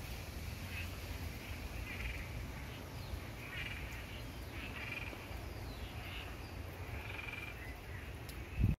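Frogs calling in short repeated croaks, about one every half second to second, over a steady low rumble of gusty wind on the microphone. There is a brief low thump near the end.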